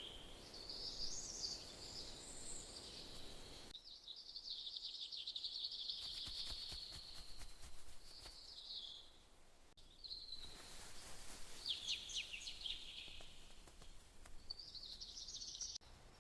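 Songbirds chirping in a series of short, high phrases, some as rapid trills, with brief pauses between them over faint forest ambience.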